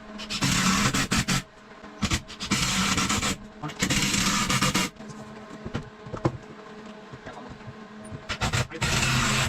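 Power drill driving screws into the workbench's wooden frame: four bursts of motor whir about a second long each, near the start, around the third and fourth seconds, and again near the end.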